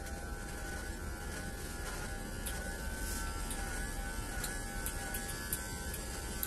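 Electric hair clippers buzzing steadily while cutting hair, over a low steady hum.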